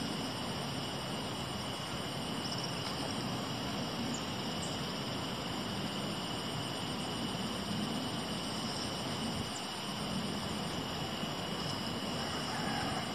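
Steady rush of river water with insects trilling continuously above it, a high, fast-pulsing chorus.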